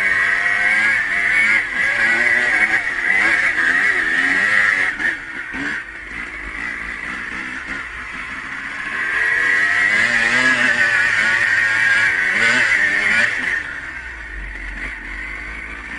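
Dirt bike engine revving up and down, the pitch rising and falling with the throttle, heard from the rider's helmet camera. It is loudest for about the first five seconds and again from about nine to thirteen seconds, and drops back in between and near the end.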